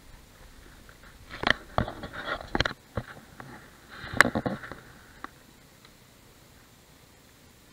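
Handling noise of fishing gear being set up: clicks, scrapes and knocks in two short clusters, the sharpest click about four seconds in.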